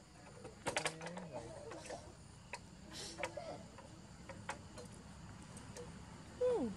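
Scattered light clicks and rattles from a baby macaque climbing on a scooter's wire-mesh front basket. Near the end comes a short call that slides down in pitch.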